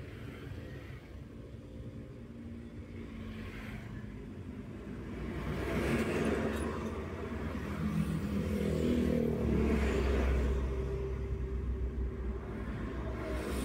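A Daihatsu Terios being driven, heard from inside the cabin: a steady engine and road rumble. Passing traffic, oncoming trucks and cars, swells it louder about six seconds in and again around eight to eleven seconds in, the second time with a deep low rumble.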